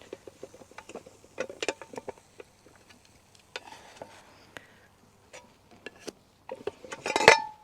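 Light clicks, taps and scrapes of the Ridgemonkey pan and utensils as cooked eggy bread is lifted out onto a plate. The clicks come thick in the first couple of seconds, then sparse. Near the end there is a louder cluster with a brief ringing clink.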